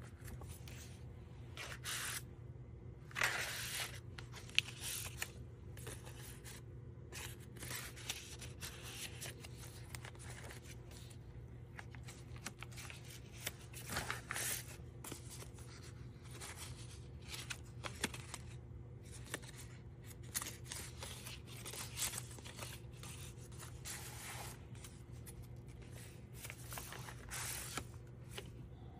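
Paper pages and tucked-in cards of a handmade junk journal being turned and handled, giving irregular rustles and swishes, with a couple of sharp clicks a few seconds in.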